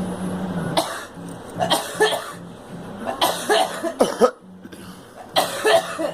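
A girl coughing repeatedly, in several short fits spread about a second apart.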